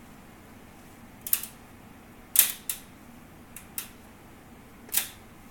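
Phanteks Enthoo Luxe PC case panel creaking and popping under gentle hand pressure: about six sharp pops, the loudest about two and a half seconds in. It is the same creak-pop the case makes at random on its own.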